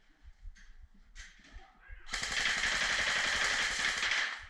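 Airsoft electric gun firing a long full-auto burst, starting about two seconds in and stopping just before the end.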